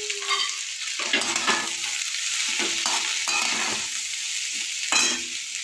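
Garlic, carrots and green chillies sizzling in oil in a metal kadai while a long metal spatula stirs and scrapes the pan in repeated strokes, the sharpest scrape near the end.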